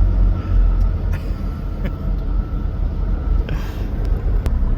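Low, steady engine and road rumble inside a semi-truck's cab in slow traffic, with a faint steady whine and a brief hiss about three and a half seconds in.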